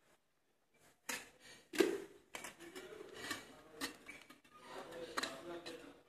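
Metal cocktail shaker tin and bottle being tossed and caught in flair bartending practice: a knock about a second in, then a louder metallic clank with a short ring, followed by lighter clinks and handling knocks.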